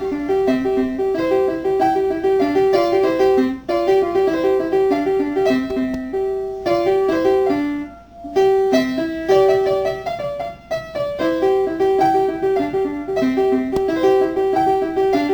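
Background music: a fast, rhythmic piano or keyboard melody of quickly repeating notes.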